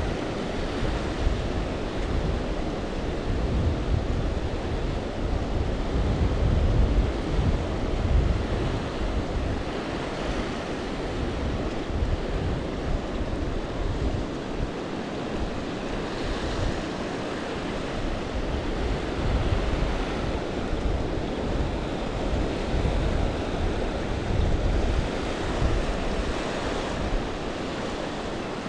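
Small ocean waves washing in over a flat sand beach in a steady hiss, with wind buffeting the microphone in a gusty low rumble.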